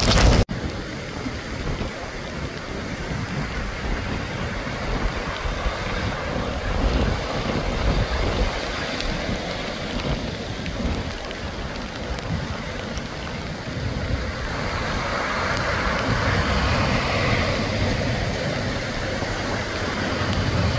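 Wind buffeting the microphone over steady rain. Vehicles drive through a flooded street, their tyres swishing and splashing through standing water, getting louder in the second half. A brief burst of breaking surf comes at the very start.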